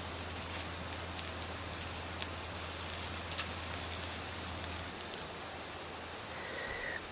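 Meat sizzling on a wire grill over charcoal, with a few sharp crackles, over a steady high insect trill. About five seconds in the sizzle gives way to quieter night ambience with the trill still going.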